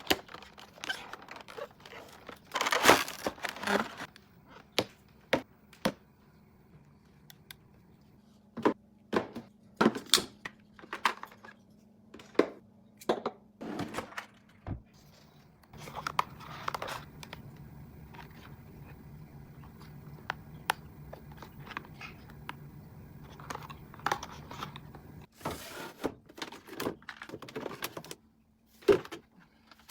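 Plastic packaging and containers being handled: crinkling and rustling, with many separate clicks and light knocks as items are picked up and set down. A low steady hum runs through the middle stretch.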